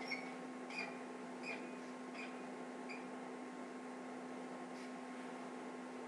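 Low, steady electrical hum with faint room tone. Five short, high chirps come evenly spaced, about 0.7 s apart, over the first three seconds, then the hum goes on alone.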